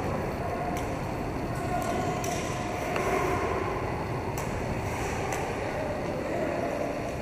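Roller hockey play in a large echoing sports hall: skate wheels rolling on the rink floor, with scattered sharp clicks of sticks and ball and distant players' shouts.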